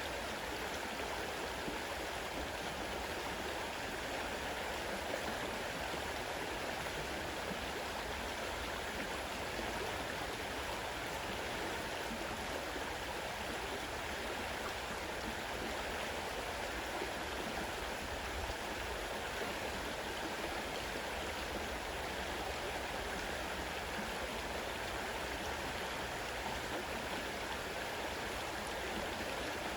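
Fast-running river rushing steadily: an even, unbroken water noise with no change.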